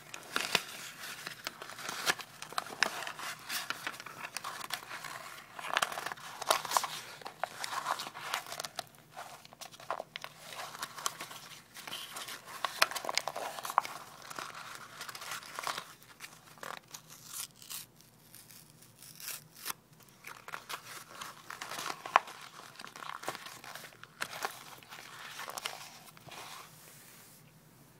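Thin tissue paper and paper towels being torn and crumpled by hand: a dense, irregular crackle of rustling and small tearing sounds that thins out in patches and softens near the end.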